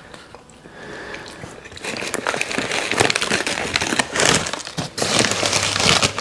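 A paper or food wrapper being crumpled and crinkled by hand. The rapid crackling starts about two seconds in and keeps on loudly.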